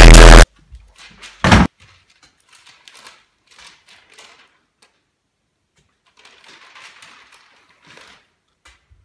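Loud electronic music cuts off abruptly half a second in. A second later comes a single heavy thump, like a door slam. Faint rustling and small clatter follow, from a newspaper being handled and food being prepared at a kitchen counter.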